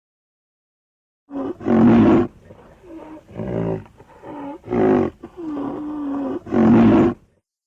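Roaring and bellowing creature sound effect for a fictional dinosaur, the Jugaloceratops. After a second of silence it gives a run of about seven calls, some short and some drawn out, several bending in pitch.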